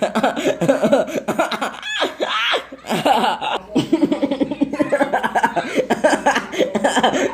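High-pitched voices laughing and giggling, mixed with bits of chatter.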